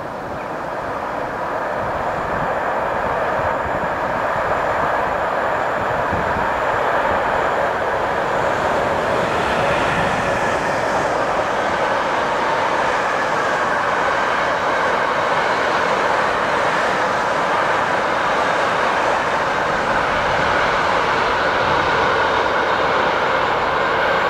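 Container freight train running on the line: a steady rush of wheels on rails that grows louder over the first couple of seconds, then holds.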